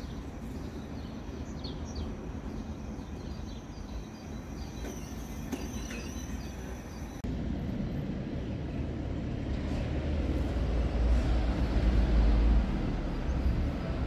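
Small birds chirping over a low background hum. About halfway through the sound changes abruptly to a vehicle passing, a low rumble and road noise that build to a peak near the end, then ease.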